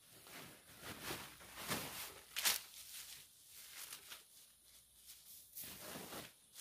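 Leafy twigs rustling as they are pulled by hand out of a woven plastic sack and dropped onto a plastic sheet, with the sack crinkling; irregular rustles, the loudest about two and a half seconds in.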